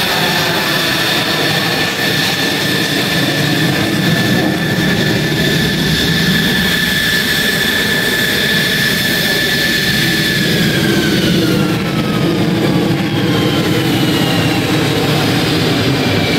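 F-16 fighter's jet engine running at ground idle: a steady high whine over a low rumble. About ten seconds in, the whine starts to fall in pitch as the engine spools down at shutdown.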